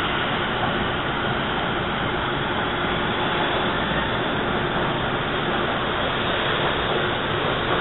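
Hawker Siddeley-built TTC subway train running along the station platform: a steady, even noise of wheels and motors without distinct clicks or squeals.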